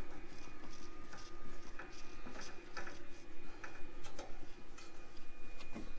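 Light, irregular clicks and ticks as a new spin-on oil filter is screwed by hand onto the tractor engine's filter mount.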